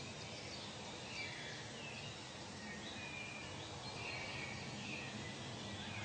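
Forest ambience: scattered short bird calls, some sliding down in pitch, over a steady background hiss.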